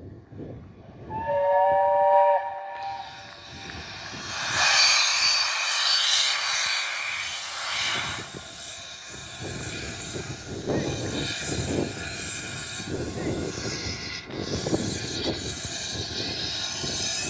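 Steam locomotive 70000 Britannia, a BR Standard Class 7, gives a short whistle blast about a second in. Steam then hisses loudly from its open cylinder drain cocks for a few seconds, followed by the beat of its exhaust as it works slowly along.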